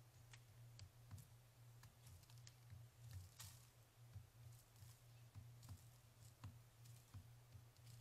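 Faint, irregular taps of a pileated woodpecker pecking at soft, rotting wood, roughly one or two a second, over a steady low hum.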